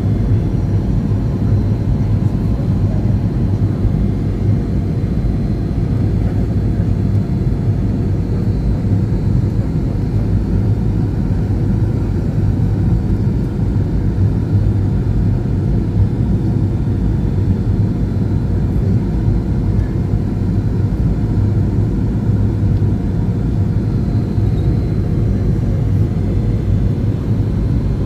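Aeroplane noise during a landing approach: a steady, loud low rumble with faint constant tones above it, unchanging throughout.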